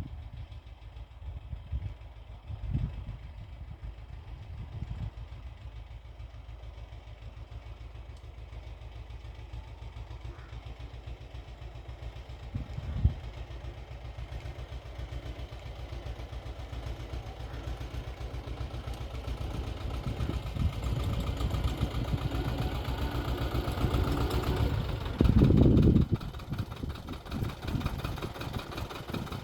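Xingtai 220 mini tractor's diesel engine running while it works a rotary tiller. The engine sound grows louder through the second half and is loudest about 25 seconds in, with a couple of brief thumps earlier on.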